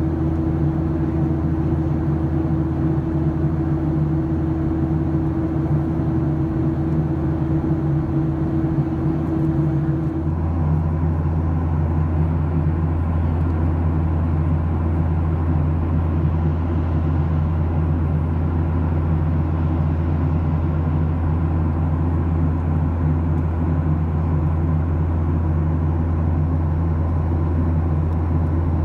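Steady cabin drone of a Boeing 737-700's CFM56-7B turbofan engines, at climb and then cruise power. About ten seconds in the sound changes abruptly: a steady hum drops out and the low drone evens out.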